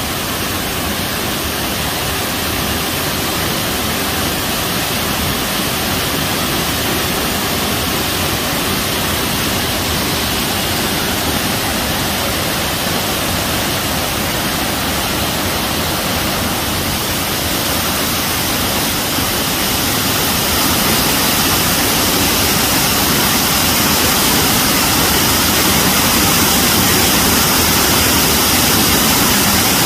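Mountain waterfall running high, with a lot of water pouring over rocks: a steady, loud rush of falling water that grows a little louder about two-thirds of the way through.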